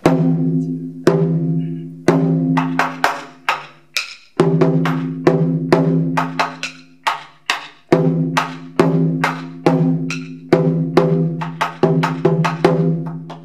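Chu-daiko (nagado-daiko) on a slant stand struck with wooden bachi in a brisk rhythmic pattern. Full head strikes (don) ring on with a low pitched tone, and sharp dry clicks of rim hits (ka) fall between them.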